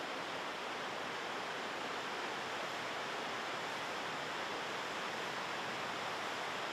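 Chilliwack River rushing over rapids: a steady rush of whitewater with no change in level.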